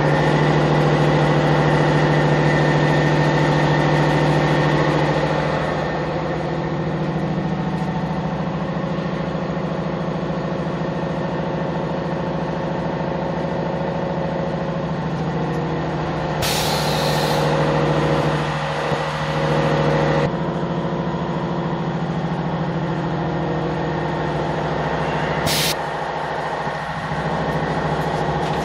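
Automatic plastic sheet bending machine running with a loud, steady mechanical hum that cuts in suddenly at the start. Two short hisses of air from its pneumatics come about halfway through and again near the end.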